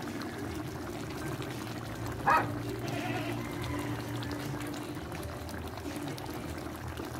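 Chicken curry with coconut milk simmering and bubbling in a pot, with a steady low hum underneath. One brief sharp sound stands out about two seconds in.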